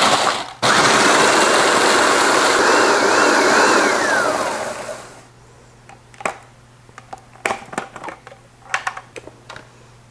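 Hamilton Beach food processor pulsing graham crackers into fine crumbs: a short pulse, then a longer run of about four seconds that winds down with a falling whine. After it stops come sharp plastic clicks and knocks as the lid is unlocked and the bowl handled.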